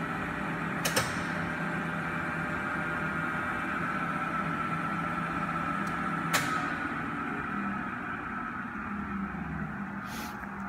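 Kingston HD-22160 gear-head lathe running at a low spindle speed: its motor and headstock gearing give a steady hum with a high gear whine. There are a couple of sharp clicks about a second in and another at about six seconds. The sound eases off over the last few seconds.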